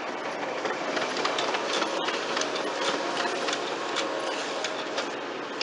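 Kyocera laser multifunction printer running a print job, feeding a page through with a steady mechanical whir and many small clicks. It is printing a network status page.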